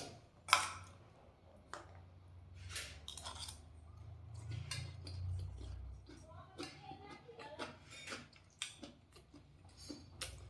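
Scattered light clicks and knocks of a spoon against a plate during eating.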